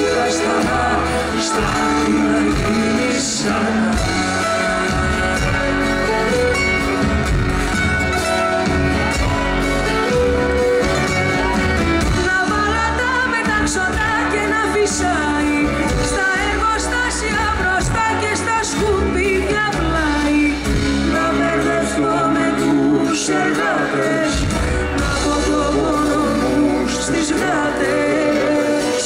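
A Greek song sung by a woman over full band accompaniment, the music steady throughout.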